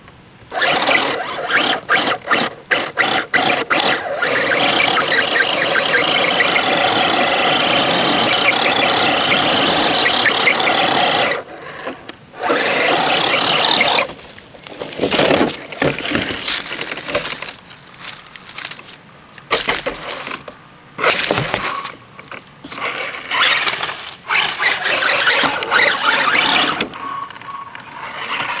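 Electric motor and gear drivetrain of an Axial Jeep Wrangler Rubicon RC rock crawler whining under throttle. It comes in a few quick blips, then a long steady pull of about seven seconds, then stop-start bursts as the truck works over the rocks.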